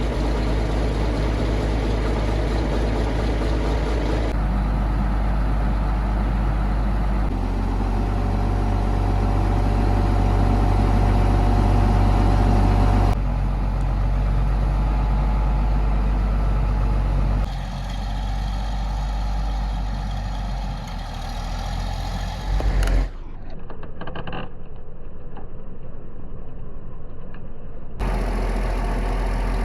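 John Deere 690D excavator's diesel engine running, in several cut-together takes whose engine note changes abruptly every few seconds. Near the end there is a duller, muffled stretch of several seconds.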